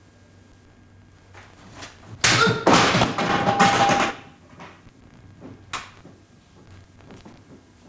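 Japanese sword test cutting: a quick run of sharp cuts and clattering knocks lasting about two seconds, with a brief ringing as severed pieces of the target hit the wooden floor. A single smaller knock follows a couple of seconds later.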